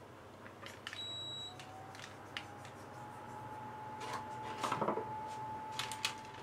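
A kitchen appliance beeps once, short and high, about a second in; then a motor hum starts, rising slightly in pitch before holding steady, with scattered clicks and knocks, loudest around five seconds in.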